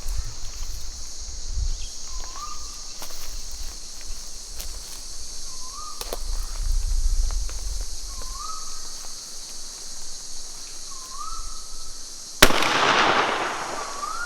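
A single 12-gauge shotgun shot goes off about twelve seconds in, the loudest sound, with a trailing echo. Before it, a bird repeats a short rising whistle about every two and a half seconds over a steady high hiss.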